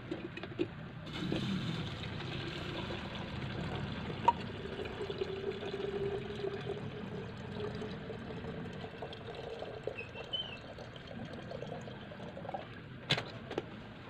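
Water running from the tap of a plastic water container into a stainless steel electric kettle, with a filling tone that slowly rises in pitch as the kettle fills. The flow fades out near the end, and a few sharp clicks follow as the kettle is handled.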